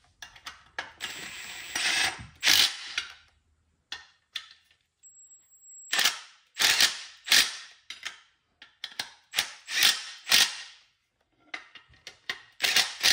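Cordless Milwaukee Fuel impact tool rattling in short bursts, about a dozen pulls of the trigger, as it runs bolts on a jet ski's jet pump housing.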